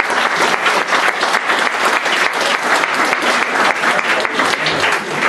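Group of people applauding: many hands clapping steadily and densely.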